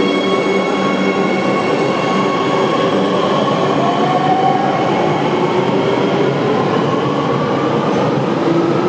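Shiraz metro train running, with a steady rumble under several steady whining tones. From about halfway through, a whine rises in pitch as the train gathers speed.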